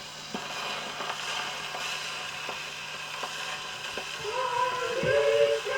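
Surface hiss and scattered crackles of an old gramophone record playing, then a choir comes in about four seconds in, singing long held notes.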